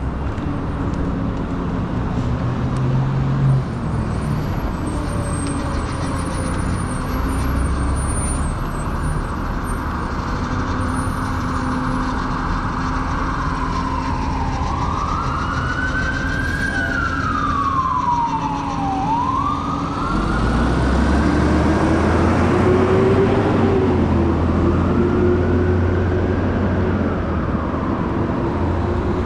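Emergency vehicle siren wailing, its pitch sweeping slowly up and down over and over, over steady street traffic. About two-thirds of the way in, a low engine rumble grows louder as the vehicle comes closer.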